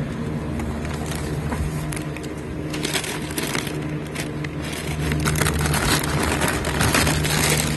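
Plastic bags of frozen chicken wings crinkling and rustling as a hand rummages through them in a cardboard display box, getting busier from about three seconds in, over a steady low hum.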